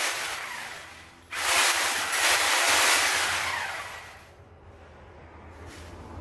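Corded handheld power tool running in two bursts: the first trails off about a second in, the second starts just after and runs for about two seconds before dying away.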